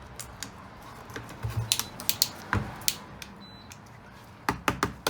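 Sharp clicks and taps of a plastic CAT LED light being handled, its switch pressed several times with no light coming on: the unit is dead. The clicks come in two short runs, one around the middle and another near the end.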